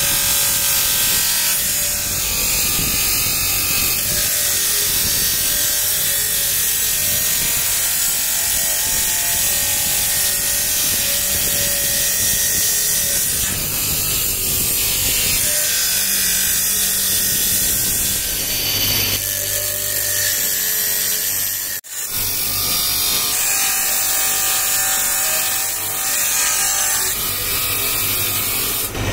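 A steel knife blank is ground on a spinning abrasive disc driven by an electric motor, making a steady grinding hiss over the motor's hum. It breaks off briefly about two-thirds of the way through.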